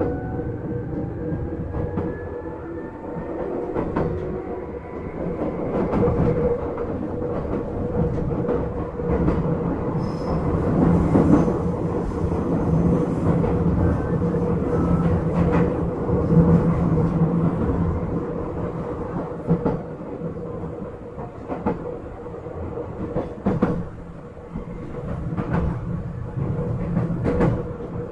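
Izukyu 8000 series electric train running along the line: a steady rolling rumble with a constant hum and repeated sharp clicks of the wheels over rail joints. A faint rising motor whine fades out within the first few seconds.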